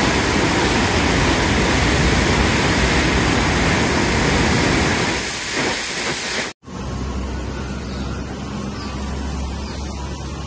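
Loud, steady rush of brown floodwater churning in a white-water torrent, swollen by water released through opened tank spillway gates after days of rain. It cuts off abruptly about two-thirds of the way through, giving way to a quieter steady background with a low hum.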